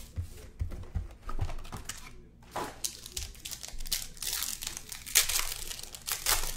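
Plastic wrap crinkling and tearing as a shrink-wrapped trading card box and its contents are unwrapped by hand. There are a few light knocks in the first second and a half.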